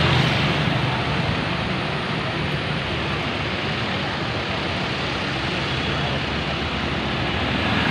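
Steady roadside traffic noise: motor vehicle engines and tyres on the road, with no horn sounding.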